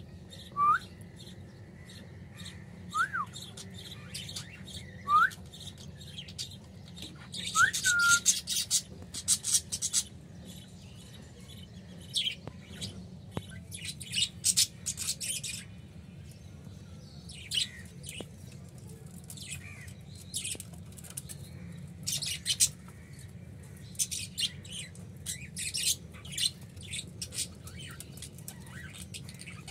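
A caged rose-ringed parakeet calling. There are a few short rising whistles in the first several seconds, then repeated bursts of sharp, high chirps and squawks.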